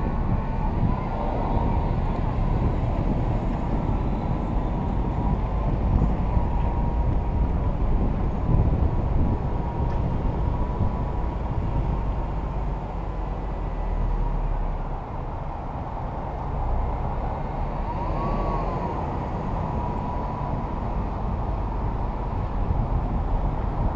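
The camera-carrying vehicle rolling slowly through a parking lot: a steady low rumble with a thin, steady high whine that wavers briefly near the end.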